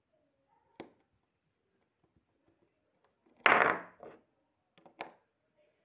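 Handling noise from a plastic toy car and a toy screwdriver: a light click about a second in, then a loud clatter about three and a half seconds in lasting about half a second, followed by a couple of small clicks near the end.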